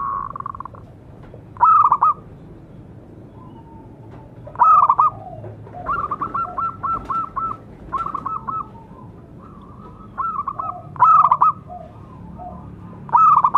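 Zebra dove cooing: several phrases of quick, rippling notes a few seconds apart.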